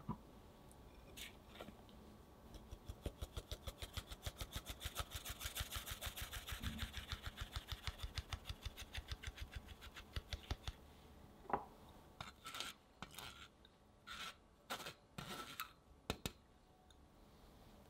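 Mesh sieve being shaken and tapped over a glass bowl to sift flour and cocoa powder, a fast, even patter of about six light taps a second for some eight seconds. A few separate knocks and short scrapes follow as the sieve is tapped out.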